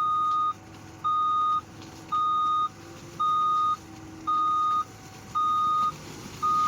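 Reversing alarm of a loader machine beeping at a steady pitch, about one half-second beep every second, as the machine backs down off a trailer. Its diesel engine runs faintly underneath.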